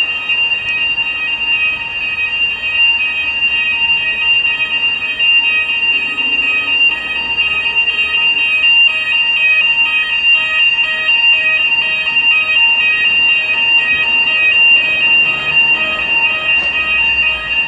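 Building fire alarm sounders going off continuously: a loud, high electronic tone with a fast repeating pulse.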